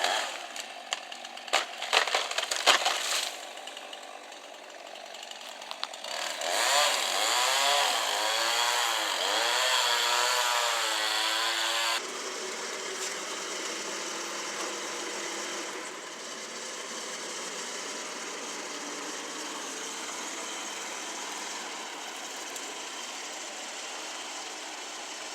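Chainsaw cutting tree limbs. Several sharp cracks come in the first few seconds. The saw then revs up and down repeatedly, and from about halfway through it gives way abruptly to a steadier, quieter engine running.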